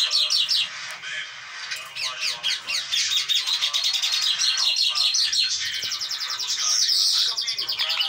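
Pet green parakeet chattering in rapid, high-pitched chirps, sparse at first and then continuous from about three seconds in.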